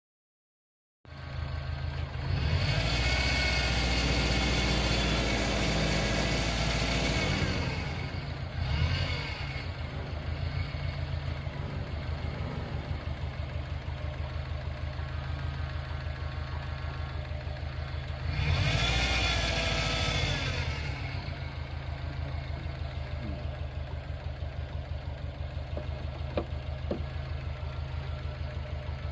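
Subaru Impreza's EJ20 flat-four engine running, revving up and back down twice and otherwise settling to a steady run.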